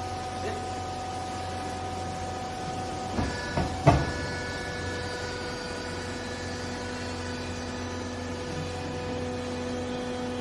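Hydraulic vertical clothes baler's power pack running with a steady hum and whine as the ram presses a load of clothes. A few sharp clunks come about three to four seconds in, the last one the loudest, and after them the whine shifts to a different pitch. A lower tone joins near the end.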